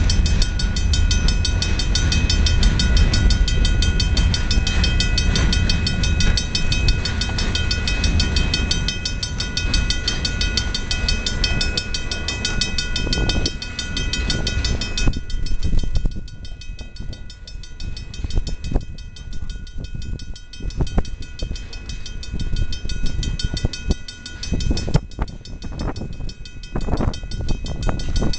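Freight cars, covered hoppers then gondolas, rolling past with a heavy rumble for about the first half. It then turns lighter, with separate sharp wheel clacks over the rail joints. A steady high ringing tone sits above it throughout.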